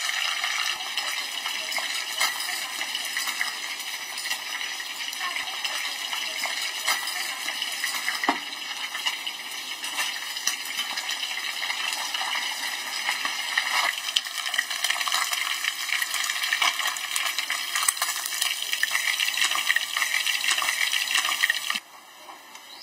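A whole fish is frying in hot oil in a wok, giving a steady, dense crackling sizzle, with occasional sharp taps of the spatula and tongs against the pan. Near the end the sizzle cuts off suddenly, leaving only a faint hiss.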